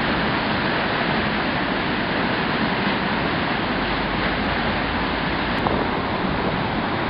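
Steady rushing of a storm-swollen river in flood, with rain falling.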